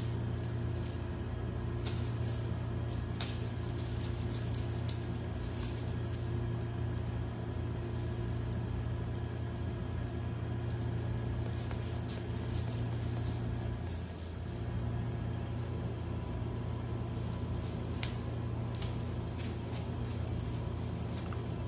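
Faint scattered rustles and light taps of a wand cat toy, its tinsel streamers and beads shaken as a cat plays with it, over a steady low hum.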